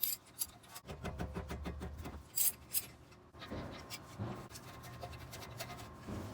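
Scratching, light clicks and rubbing of hand tools and parts being worked on a car's front brake assembly, with quick ticks in the first few seconds and softer scraping later.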